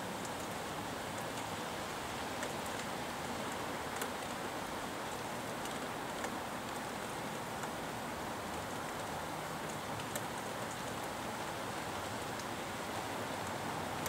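Steady rain falling, an even hiss, with a few sharp drips landing close by now and then.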